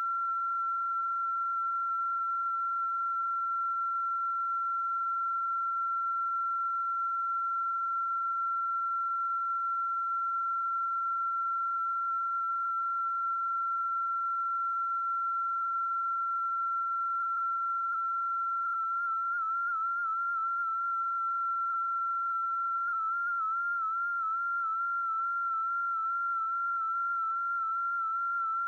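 A steady, high electronic tone with a pure whistle-like pitch. About twenty seconds in it begins to wobble rapidly up and down in pitch.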